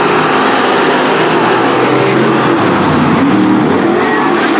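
A pack of dirt-track street stock race cars running together, many engines at once, loud and steady. Their engine notes rise and fall as the drivers get on and off the throttle through the turn.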